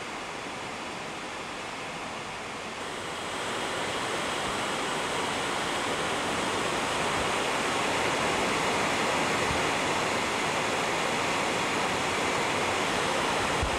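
Waterfall: water pouring down a rock face and splashing into a pool, a steady rushing that grows louder about three seconds in.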